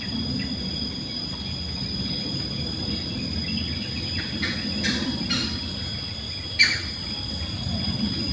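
Steady high-pitched drone of insects on two unchanging tones. Several short high sounds cut through between about four and five and a half seconds in, with a sharper, louder one near six and a half seconds.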